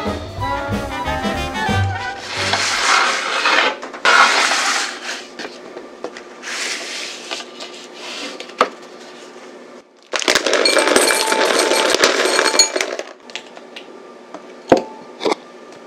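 Background music that ends about two seconds in, followed by kitchen handling sounds: several bursts of rustling noise and a few sharp clinks of a glass mixing bowl and utensils.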